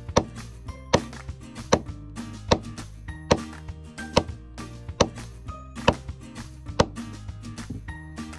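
Hammer blows driving a metal spike down into a wooden deck plank, about nine sharp strikes at an even pace a little under a second apart, forcing out the black bedding compound around the spike head. Background music plays underneath.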